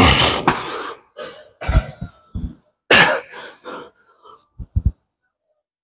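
A man coughing and breathing out hard in three noisy bursts over about three seconds, followed by two short low knocks.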